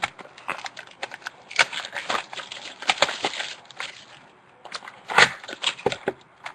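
Packaging of a 2011 Topps Finest trading-card mini box being torn and opened by hand: irregular crinkling and crackling, with a short lull about four seconds in.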